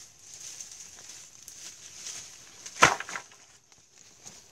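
A bundle of cut bamboo poles dropped onto dry ground about three seconds in: one loud wooden clatter followed by a couple of smaller knocks.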